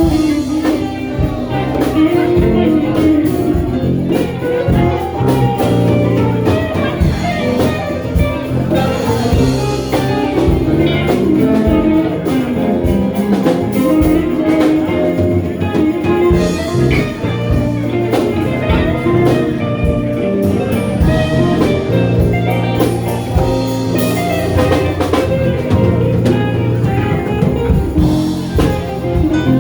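A band playing a blues-style tune with guitar and drum kit, mostly instrumental.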